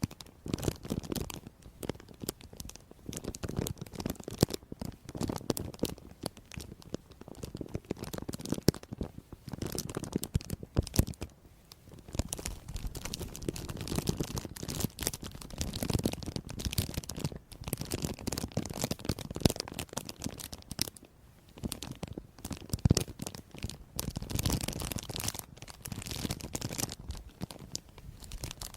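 Dense, irregular crisp crackling and crunching, with short lulls.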